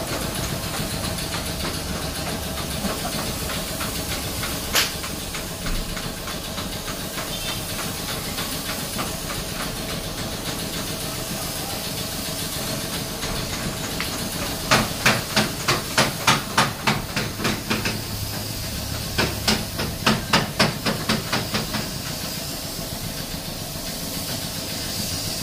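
Compressed-air gravity-feed spray gun hissing steadily as it sprays paint onto a car bonnet. A single sharp click comes about five seconds in, and in the second half two runs of rapid sharp ticks, about four a second, sound over the hiss.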